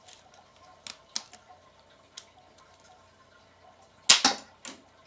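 K'nex rod-shooting replica rifle: a few light plastic clicks, then about four seconds in a loud, sharp snap of the firing pin with a quick rattle and a smaller click after it, as the gun fires.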